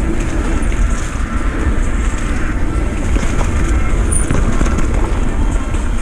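Downhill mountain bike rolling fast on a dirt trail: a steady rumble of the tyres over the ground and rattling from the bike, with wind buffeting the microphone.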